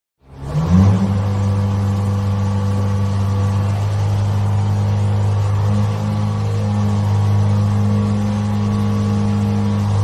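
Mobile crane's engine running at a steady, even pitch: a low drone that starts about half a second in.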